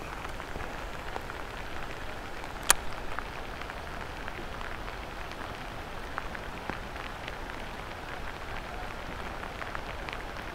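Steady rain falling on a lake, an even hiss sprinkled with small drop ticks, with one sharper tick a little under three seconds in.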